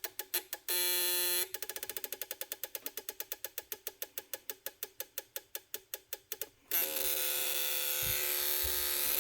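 Radio signal indicator circuit on a 160-in-1 electronic kit, pulsing through its sound coil: a rapid, even train of clicks, about seven to nine a second, broken about a second in by a short steady buzz, then slowing slightly. Near the end it turns to a steady buzzy hiss. The pulse rate shows how strong the radio station is.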